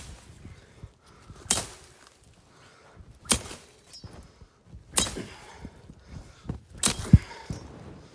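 Sharp chopping strikes of a cutting tool through sneezeweed stalks, one about every one and a half to two seconds, five in all. The last is followed closely by a low thud.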